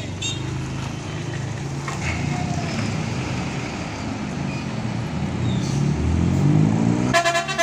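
Diesel engine of a large intercity coach running as it pulls away, its pitch rising as it revs up over the last couple of seconds. A horn sounds briefly near the end.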